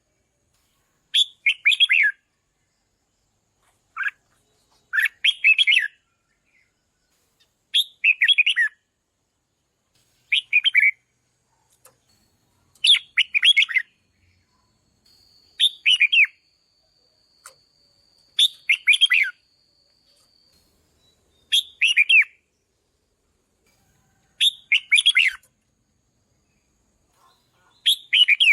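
Red-whiskered bulbul singing: short, quick warbled phrases repeated about every two and a half to three seconds, with brief silences between them.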